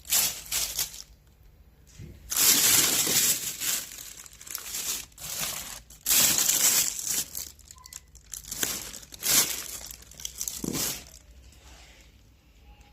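Crinkling plastic snack packet, handled in irregular bursts of rustling that fade out near the end.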